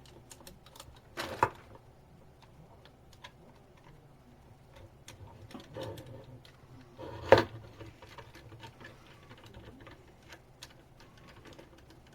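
Light, irregular clicks and taps of parts being handled while a worm-drive hose clamp is fitted onto the plastic chassis, with two sharper knocks, the louder one about seven seconds in.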